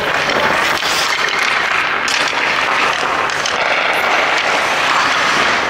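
Steady, even hiss of ice-rink noise, with a few faint clicks.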